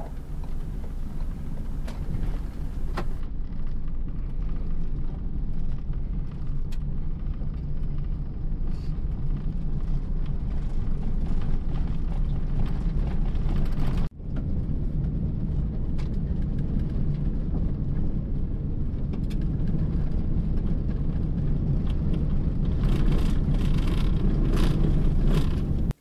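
Van driving on a gravel road, heard from inside the cab: a steady low rumble of engine and tyres with a few scattered light ticks. The sound cuts out for a moment about halfway through.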